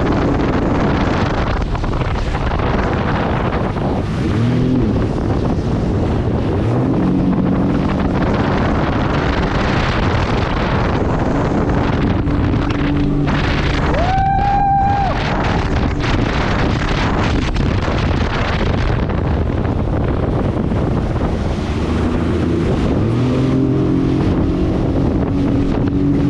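Motorboat-type engine running at speed, its pitch shifting up and down several times, under heavy wind buffeting on the microphone and the rush of water. About halfway through there is a short high-pitched tone that rises, holds and falls.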